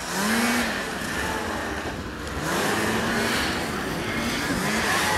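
Racing snowmobiles coming over snow jumps, their engines revving up and falling off again several times as they pass.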